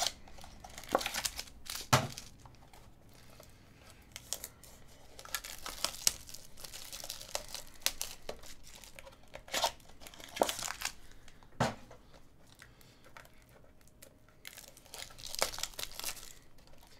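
Foil trading-card pack wrappers crinkling and tearing as they are pulled open by hand, in irregular bursts of crackle with quieter gaps between.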